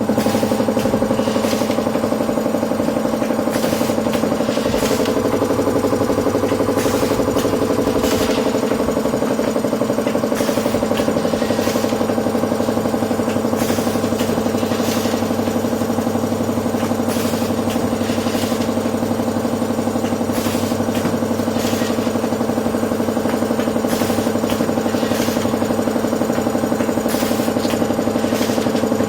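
Pouch packing machine running: a steady motor hum with a sharp mechanical click every second or two as it works through its cycle.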